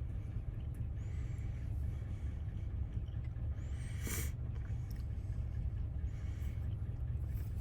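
Steady low hum, with one small click of metal lock parts being handled about four seconds in.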